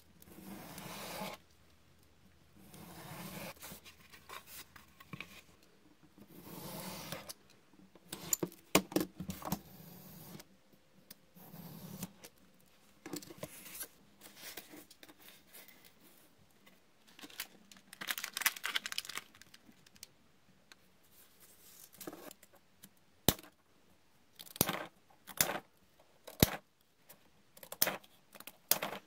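Utility knife drawn through 5 mm foam board along a steel square in several long scratchy strokes, then a series of sharp scissor snips cutting paper strips.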